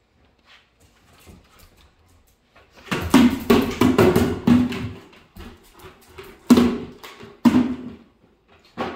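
Plastic bucket thrown down onto a hardwood floor, clattering and rolling noisily for about two seconds from three seconds in, then knocked about twice more as a dog catches it up in her mouth.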